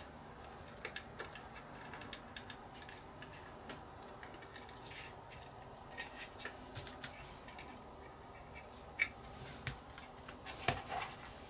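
Paint masking being peeled off a painted plastic model kit body: faint scattered ticks, crackles and small rubbing sounds of masking lifting and fingers handling the plastic, with a few sharper clicks near the end.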